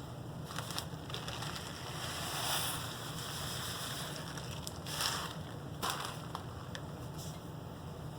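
Dry uncooked rice pouring into a cotton fabric pocket: a soft hiss that swells about two to three and a half seconds in, with a couple of light knocks around five and six seconds in.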